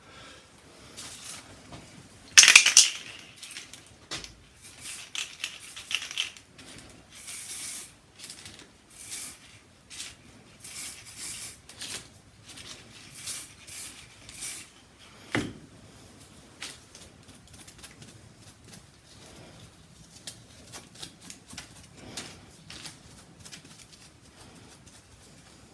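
Hard plastic pieces and small tools being handled: a sharp clatter about two and a half seconds in, then a run of short scraping and rubbing noises with scattered clicks, one louder click just past the middle.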